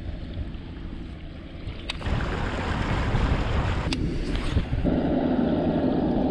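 Baitcasting rod and reel being cast and retrieved. There is a click about two seconds in, then a rushing whir, another click near four seconds, and then the reel being wound steadily near the end. Wind rumbles on the microphone throughout.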